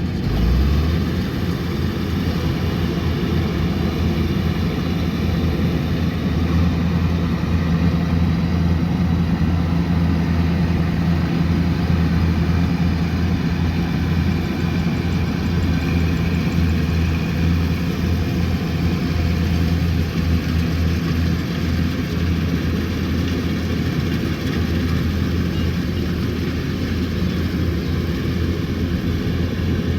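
Kubota combine harvester's diesel engine running steadily under work, a constant low drone with a haze of mechanical noise above it.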